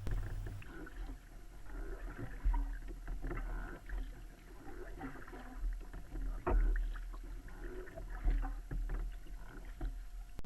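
Kayak paddle strokes dipping and splashing in the water at an uneven pace, over a steady low rumble.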